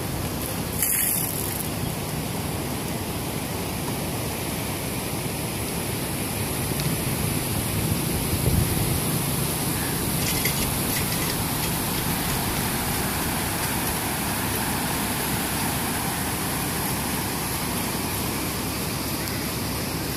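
Steady rush of canal water flowing at the barrage, an even, constant noise, with a brief sharper sound about a second in.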